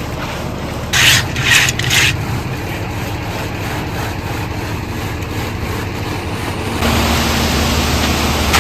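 Three short scrapes of a tool dragged across wet concrete about a second in, over the steady running of a concrete truck's diesel engine. The engine gets louder near the end.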